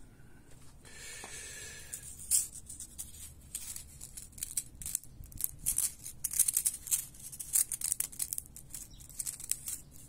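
A dry sicklepod (Senna obtusifolia) seed pod being worked open by hand: a dense run of crisp crackling clicks starting about two seconds in.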